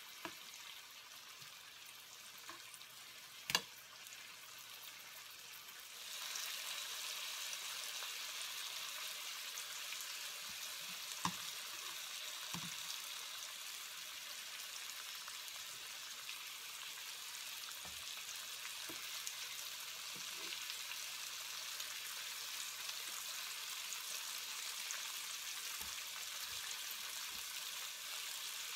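Largemouth bass fillets frying in butter in a pan: a steady sizzle that grows louder about six seconds in, with one sharp click a few seconds in.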